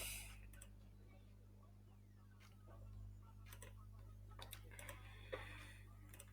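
Near silence over a low steady hum, with about eight faint, scattered computer-mouse clicks.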